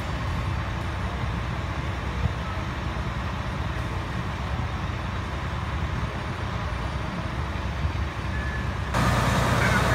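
Steady low rumble of fire engines running at a fire scene. Near the end it abruptly turns louder and closer.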